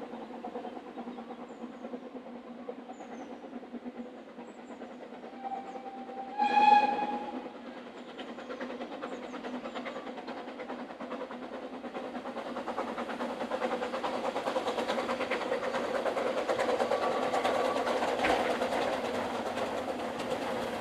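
Double-headed narrow-gauge steam train, the Double Fairlie Merddin Emrys and the Hunslet 2-6-2T Russell, approaching: a short steam whistle about a second long sounds six or seven seconds in and is the loudest sound. Over the second half the beat of the exhausts and the running of the train grow steadily louder.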